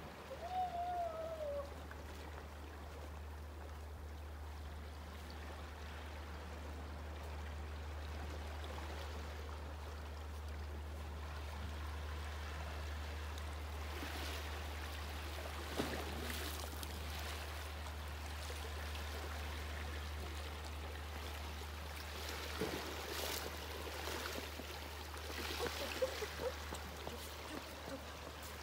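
Seashore ambience: a steady low rumble with faint water lapping against the rocks. There is a short falling call about a second in and a few light taps and scuffs later on.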